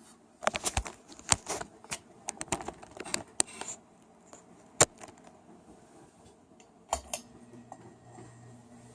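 A flurry of sharp clicks and rattles over the first few seconds, then single clicks near five and seven seconds. After that a faint, steady low hum sets in: the ceiling fan's motor humming.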